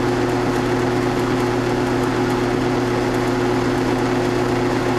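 Milling machine spindle running steadily with an edge finder spinning in it while it is fed up to the edge of the aluminium work: a constant motor hum with a few steady tones over hiss.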